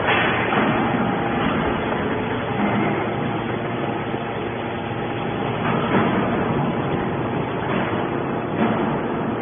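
Hydraulic scrap metal baler running steadily, with a couple of louder knocks about six and eight and a half seconds in.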